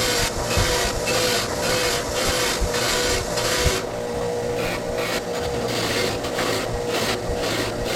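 Powered wire wheel running with a steady hum while a steel ratchet is pressed against it, the wire bristles scrubbing rust and dirt off the knurled handle in strokes about twice a second.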